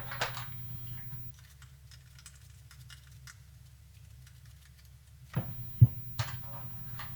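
Faint small clicks and ticks of a screwdriver and a screw being handled at the hard drive bay of a PS3 Super Slim, then a few sharper knocks near the end, one of them loud. A low steady hum runs underneath.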